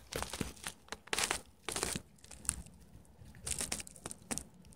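Handling noise: irregular rustling and small clicks as a tablet is picked up and turned over in the hands.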